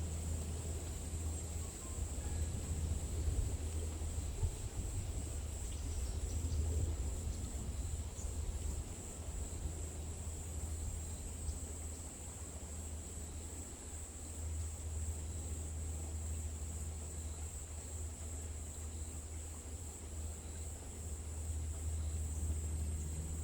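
Forest ambience: insects, likely crickets, trilling in a steady, unbroken high-pitched drone, over a low rumble.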